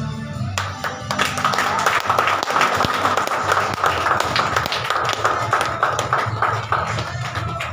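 Audience clapping and applauding over background music, the applause starting about half a second in.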